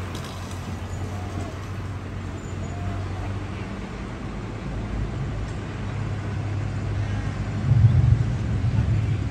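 Low, steady engine drone of loaded trucks pulling away on the road, swelling louder about eight seconds in as a pickup accelerates close by with a puff of exhaust smoke.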